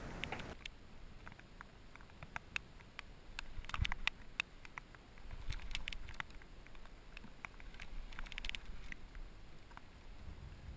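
Faint, irregular light ticks and pattering over a low hiss. They come thickest around four seconds in and again near eight and a half seconds.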